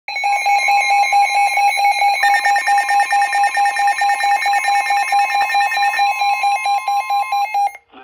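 Several NOAA weather alert radios sounding their alarms at once: rapid pulsed beeps at different pitches overlapping, with a steady tone underneath. A second, higher beep pattern joins about two seconds in, and all of it cuts off suddenly near the end. The radios are alerting to a severe thunderstorm warning.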